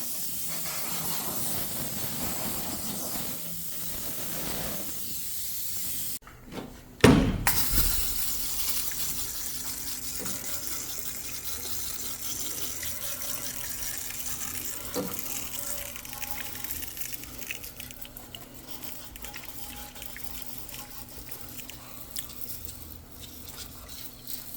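A steady spray of water hissing against the engine bay's sheet metal as the grease and grime are washed out, with a sudden loud knock about seven seconds in.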